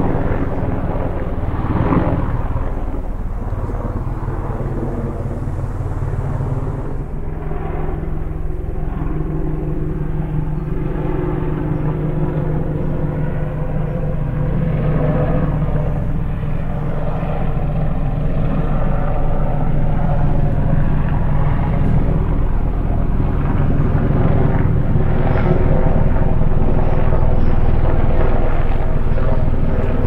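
Steady buzz of a camera drone's motors and propellers, several pitches at once that shift slightly as the drone manoeuvres.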